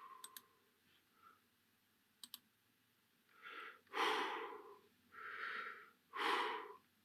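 A person breathing close to a microphone, heard in a quiet recording played back with light denoising applied: four audible breaths in and out in the second half, after a few faint clicks near the start.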